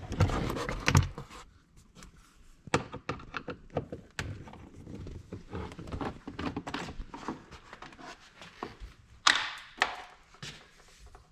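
Hand tools and the ATV's plastic side panel being worked loose: a series of knocks, clicks and thunks, loudest about a second in and again near the end.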